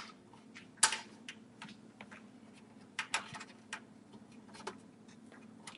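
Scattered small clicks and taps of metal thumb screws being handled and set into the screw holes of a steel computer case, with one sharper click about a second in and a short run of clicks around three seconds in.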